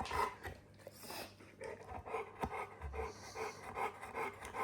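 Dogue de Bordeaux panting, a steady run of quick breaths at about three a second.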